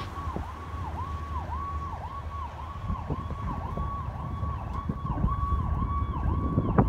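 Emergency vehicle's electronic siren warbling: a high tone that dips in pitch and springs back about twice a second, growing louder over the last few seconds as it approaches. A low rumble runs beneath, and a sharp click comes near the end.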